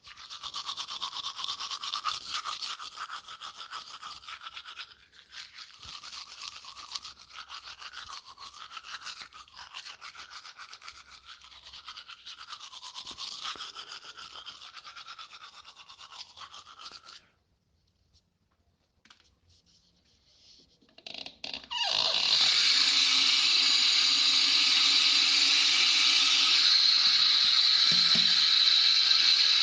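Teeth being brushed with a scratchy, irregular scrubbing for about seventeen seconds, then a brief pause with a few small clicks. About twenty-two seconds in, water is turned on and runs in a steady, loud stream.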